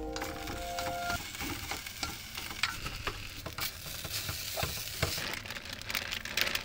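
Food sizzling in a frying pan, with scattered small clicks of stirring.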